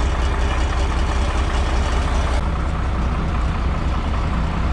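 A John Deere tractor's six-cylinder diesel engine idling with a steady low drone. A hiss of wind over it drops away abruptly about halfway through.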